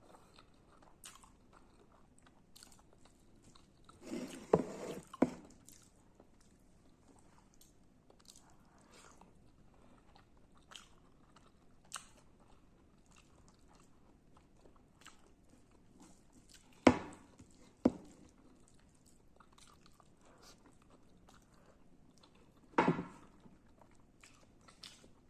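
Close-miked eating of radish with rice: soft chewing with small wet clicks throughout, broken by a few loud sharp crunching bites, a pair about four to five seconds in, two more near the middle and another near the end.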